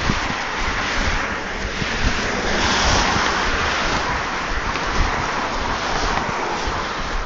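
Rushing road noise from passing traffic mixed with wind on a phone's microphone while walking, swelling as a car goes by about three seconds in, with scattered low knocks from the phone moving.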